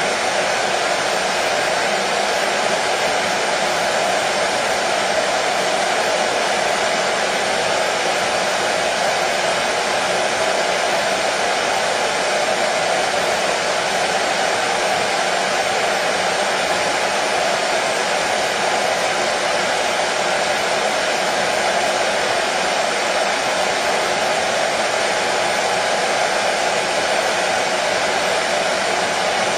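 Hair dryer running steadily: a constant whooshing fan noise with a faint steady hum and no change in speed, used as soothing white noise for colicky babies.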